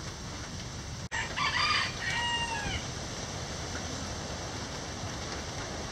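A rooster crows once, starting a little over a second in and lasting about a second and a half, its last note falling away. Steady rain hiss runs underneath.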